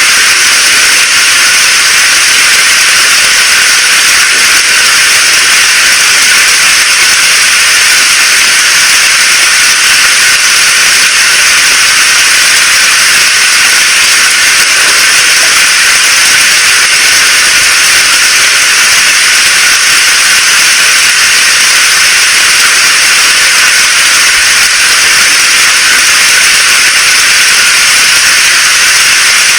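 Steady rain falling: a loud, even hiss, strongest in the higher pitches, with no separate drops or thunder standing out.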